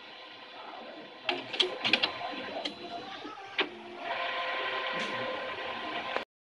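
HP LaserJet CP1025 color laser printer running its start-up cycle after a toner change, working toward ready. Its motors whir steadily, with a cluster of sharp clicks and clunks about a second and a half in and one more around three and a half seconds. A louder steady whirring starts about halfway through and cuts off suddenly near the end.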